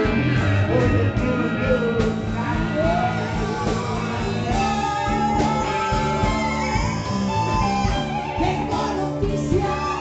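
Live amplified rock-blues band playing: a woman singing into a microphone over electric bass and electric guitar.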